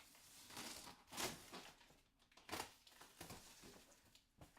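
Cardboard shipping box and its packing being handled, with a few short, faint scrapes and rustles.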